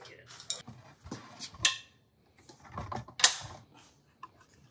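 Hand tools working the cylinder-head bolts of a Ford flathead V8: irregular metallic clicks and clanks with short pauses between them, the sharpest a little past three seconds in.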